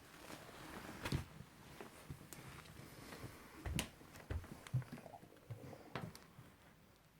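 Irregular light clicks and knocks, about eight of them spread unevenly, with a pair close together near the start and a cluster in the middle.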